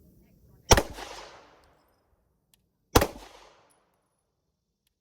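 Two pistol shots from a Walther PDP F Series 9mm, about two seconds apart, each a sharp crack with a short echo trailing off.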